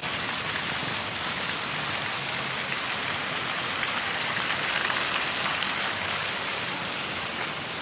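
Steady, even hiss of falling water, unbroken throughout.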